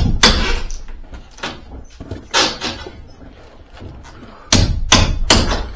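Sharp knocks and bangs, like hard objects or panels being handled: a few in quick succession at the start, a single one about two and a half seconds in, and three more near the end.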